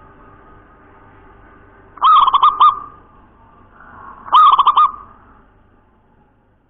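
Caged zebra dove (perkutut) cooing: two quick runs of four or five clear coo notes each, about two seconds apart.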